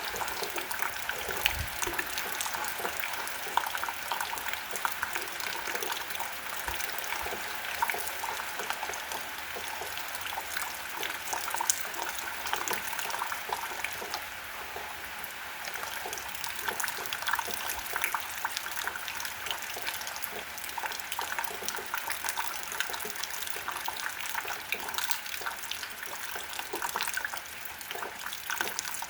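Steady rain falling, with many close drops ticking and splashing throughout.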